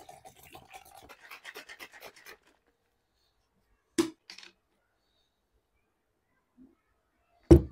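Water poured from a plastic bottle into a protein shaker bottle, a splashing stream lasting about two seconds. A sharp click about four seconds in comes as the shaker's lid is handled, and a louder knock follows near the end.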